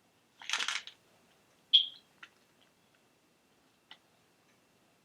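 Close-up chewing of Skittles candy: a short noisy burst about half a second in, then a sharp click and a few faint mouth clicks.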